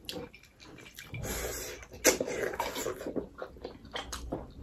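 Close-up eating sounds of momo dumplings: wet chewing and slurping, with a sharp loud smack about two seconds in followed by smaller irregular mouth clicks.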